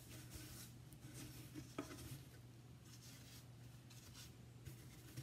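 Near silence: faint scratchy rustling from a wooden art panel being lifted and handled, over a low steady hum.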